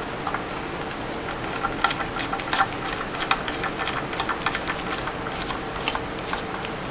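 A Phillips screwdriver turning small screws out of a graphics card: a run of quick, irregular metal clicks and ticks over a steady background hiss, thickest in the middle.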